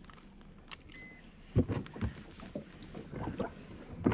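A short high beep about a second in, then irregular knocks and bumps of handling on the aluminum boat's hull.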